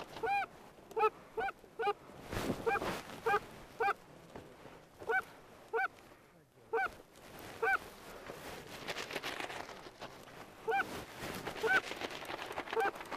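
Canada geese honking: a string of short, clipped honks, one or two a second, with a lull of a couple of seconds about two-thirds of the way through.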